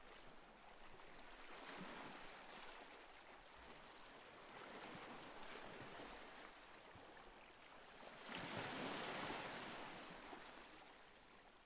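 Faint waves washing on a shore, a soft hiss that swells and ebbs several times, strongest about eight seconds in, then fades out.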